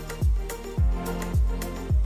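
Electronic background music with a steady beat: a deep kick drum a little under twice a second, with crisp percussion hits between.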